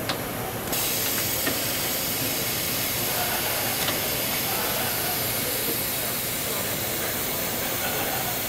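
A steady hiss that starts abruptly less than a second in and holds evenly, over low background noise.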